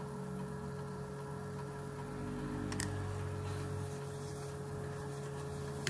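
Small metal lathe's motor running steadily with its chuck turning, a low hum with a steady whine above it. A single sharp click about three seconds in.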